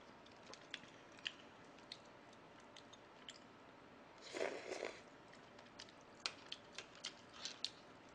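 Close-up eating sounds of a person eating stew with chopsticks: a short slurp as a mouthful goes in about four seconds in, then soft chewing with scattered wet mouth clicks.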